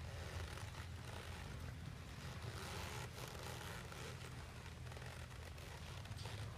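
A quarter horse filly walking under a rider on sandy ground, her soft, irregular hoof falls under a steady low rumble.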